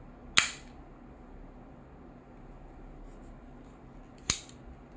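Two sharp metallic clicks about four seconds apart, each with a brief fading tail: the pull-back slide action of a Glock-style metal jet-flame lighter being worked.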